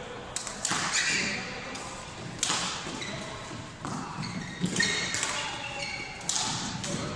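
Badminton rally: rackets striking a shuttlecock back and forth, sharp hits at irregular intervals of about a second, each ringing briefly in a large echoing hall.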